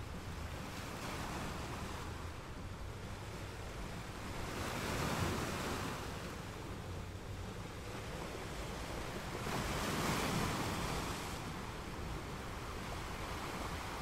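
A steady rushing noise that swells and fades twice, about five seconds apart.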